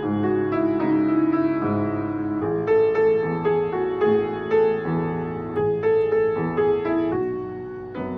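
Grand piano played solo: a pop song melody over sustained chords, with new notes struck every half second or so.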